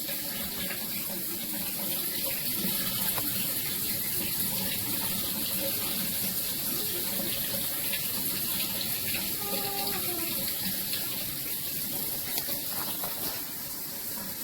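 Dual shower head running, water spraying steadily with an even rushing hiss.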